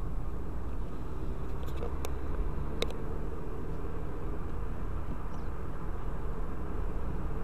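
Car driving steadily, heard from inside the cabin: an even low rumble of engine and tyre road noise, with a few short sharp clicks about two to three seconds in.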